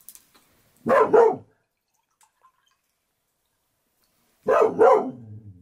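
A dog barks in two quick double barks about three and a half seconds apart. The second pair trails off into a low drawn-out sound.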